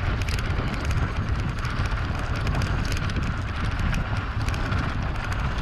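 Mountain bike ridden over a rough, stony trail: a steady low wind rumble on the action-camera microphone, with a fast, irregular clatter of tyres and frame over loose rock.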